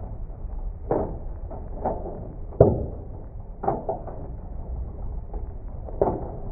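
Small hailstones striking window glass and the building, slowed down so each hit is a low, drawn-out thud. The hits come roughly once a second, the loudest about halfway in, over a steady low rumble of slowed rain.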